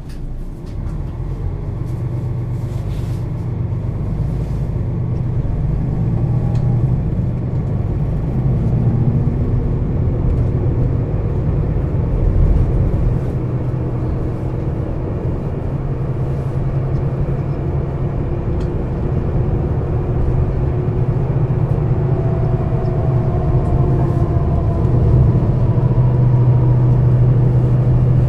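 Setra S 415 NF city bus's diesel engine and ZF gearbox running under way: a steady low drone that slowly grows louder, with faint rising whines at times.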